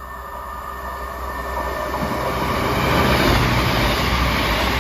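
Avanti Class 221 Super Voyager diesel multiple unit approaching and passing close by, its underfloor diesel engines and wheels on the rails getting steadily louder over the first three seconds, then staying loud as the carriages go by.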